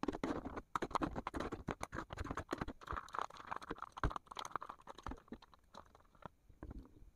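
A spoon scooping thick hot sauce from a small bowl and dabbing it onto crispy fried meatballs, close to the microphone. It makes a quick, uneven run of small clicks, taps and sticky wet sounds, busiest near the middle.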